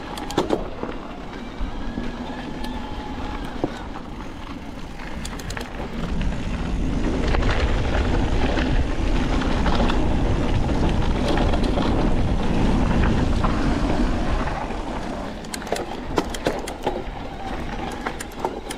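Niner WFO e9 electric mountain bike riding down a dirt singletrack: wind rush on the microphone and tyres rolling over dirt, with rattles and sharp knocks from the bike over rough ground. The rush grows louder through the middle, and a cluster of clicks and knocks comes near the end.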